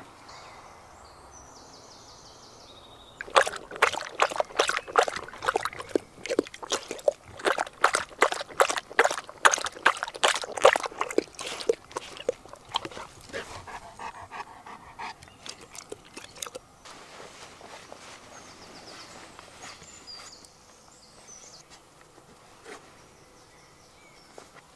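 Golden retriever lapping water from a metal bowl: a quick run of wet, sloshing laps at about four a second, starting a few seconds in and tapering off around the middle.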